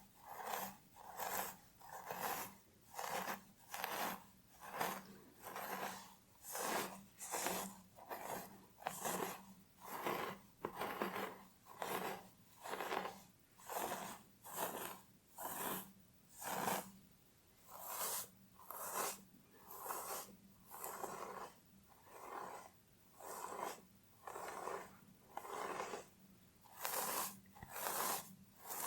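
Fingernails scratching through hair on a scalp in even, repeated strokes, a little more than one a second.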